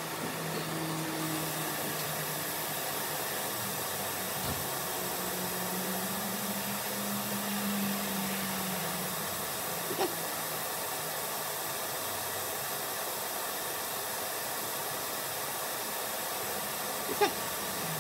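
A steady fan-like whoosh with a faint low hum runs throughout. Two faint clicks, about ten seconds in and again near the end, come from the twist-lock cable connectors on a servo motor being worked loose by hand.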